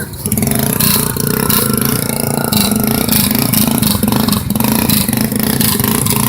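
ATV engine running hard and revving, its pitch rising and falling as the throttle is worked.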